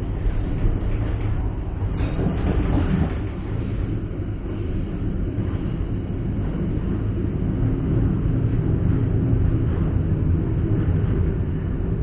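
Passenger train heard from on board, running on the rails with a steady rumble of wheels and carriage. A brighter, hissier stretch comes about two seconds in.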